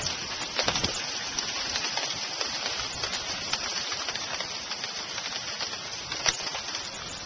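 Heavy rain pouring down in a steady hiss, with a few sharp ticks of drops striking close by.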